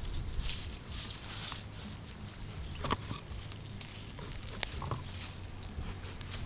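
Hands pulling radishes out of the soil: leaves rustling and tearing, with a few sharp little clicks near the middle.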